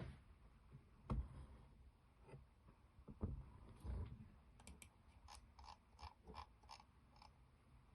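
Faint computer-mouse clicks and scroll-wheel ticks, with a few soft knocks early on and then a run of short, evenly spaced clicks about two a second, against near-silent room tone.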